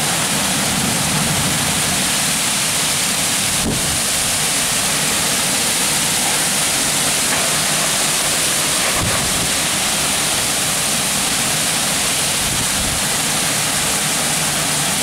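Torrential downpour with strong wind during a downburst: a steady, loud rush of rain and gusts, with a faint knock about four seconds in and another about nine seconds in.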